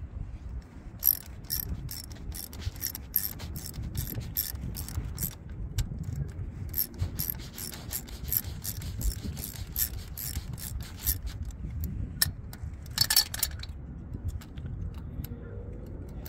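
Hand ratchet clicking as a 3/16 socket backs off the small terminal nuts on the wires of a Detroit Series 60 unit injector. Two long runs of rapid clicks come with a short pause between them, then a brief burst near the end.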